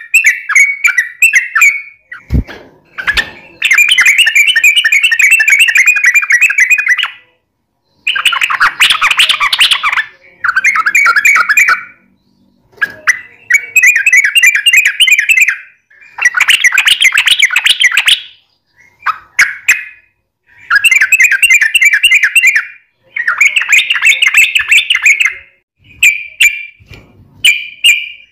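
Yellow-vented bulbul (trucukan) singing loudly in long, rapid chattering phrases, each two to three seconds long with short pauses between. Two soft knocks are heard a little over two seconds in.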